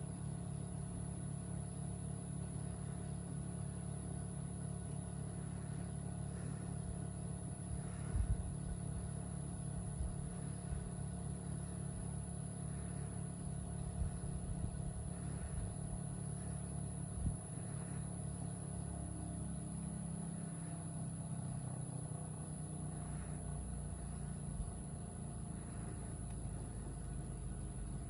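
LG 2-ton smart inverter heat pump running in heating mode, a steady hum whose low tones shift upward about two-thirds of the way through. A few brief low thumps come and go.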